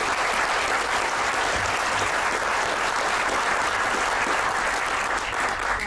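Theatre audience applauding, a steady sustained clapping that dies down at the end.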